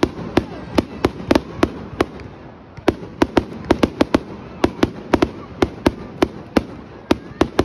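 Fireworks display: a string of sharp bangs, about three a second with uneven spacing, pausing briefly about two seconds in.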